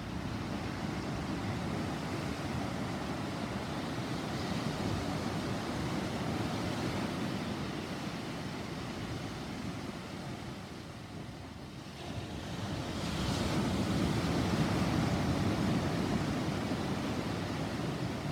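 Thunderstorm ambience: a steady low rumble and rush of wind and rain, swelling louder about thirteen seconds in.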